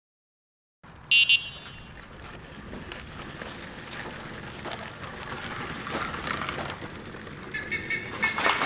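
Forest ambience: a short buzzy call about a second in, then a steady hiss with scattered clicks, and chirping calls near the end.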